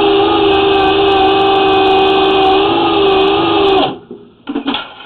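Motor of a powered drain-cleaning machine running steadily as it cuts tree roots in a clay sewer line, its pitch wavering slightly, then shut off about four seconds in. A few short knocks follow.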